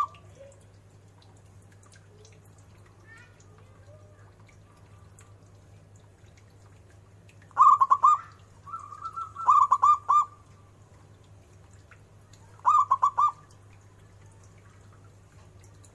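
Local zebra dove (perkutut) singing its ornamented cooing song. After several quiet seconds come a quick run of coos, a short held note, another quick run, and near the end a last run of about four coos.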